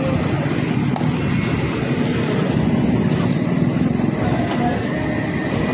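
A small vehicle engine running steadily, with a fast, even pulse.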